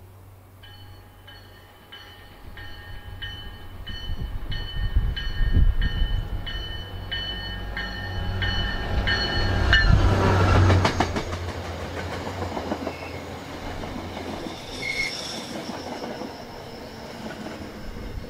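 An MBTA diesel commuter-rail locomotive arrives with its bell ringing steadily, about one and a half strikes a second, over a low engine hum that grows louder. About ten seconds in the locomotive passes close by, loudly, with clicking wheels. The bi-level coaches then roll past with a steady rumble and a brief wheel squeal.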